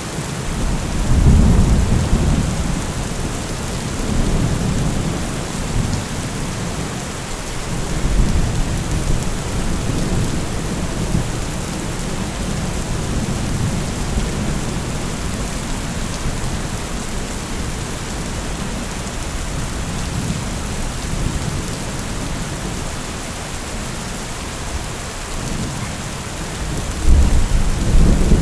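Steady heavy rain hissing, with low rolling thunder swelling and fading several times, loudest about a second in and again near the end.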